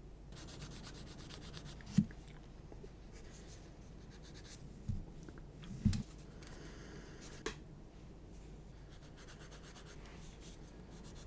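Faint scraping and rubbing of a hobby knife working small plastic model kit parts, broken by a few light knocks, the sharpest about two seconds in.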